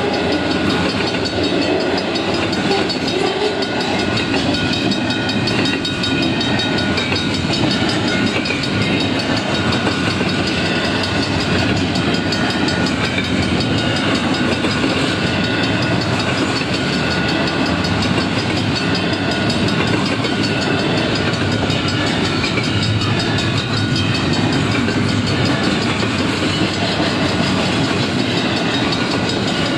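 Freight train cars rolling past close by: a steady, unbroken rumble and rattle of steel wheels on the rails.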